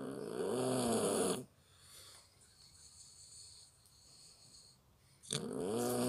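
Puppy snoring in its sleep: two long snores about four seconds apart, each rising and then falling in pitch. The owner puts them down to a problem with the bronchi.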